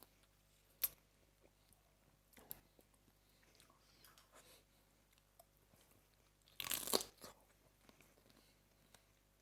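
Blue swimmer crab shell being crunched while eaten: a sharp crack about a second in, faint chewing, then one loud crunch lasting about a second near the end.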